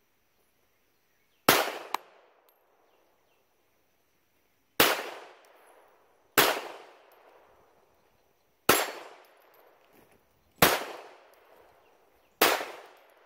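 WWI French Ruby semi-automatic pistol firing six single shots, spaced about one and a half to two and a half seconds apart, each sharp crack followed by a short echo that dies away.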